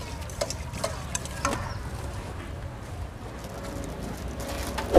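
A spoon clinking a few times against a stainless steel mixing bowl, over steady outdoor background noise, with a louder knock near the end.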